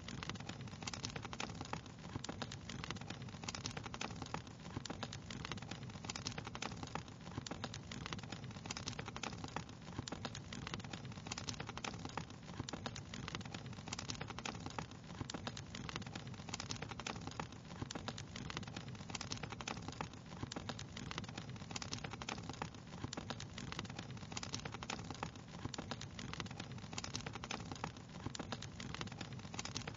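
Wood fire crackling: a dense, steady stream of small pops and snaps over a steady low rumble.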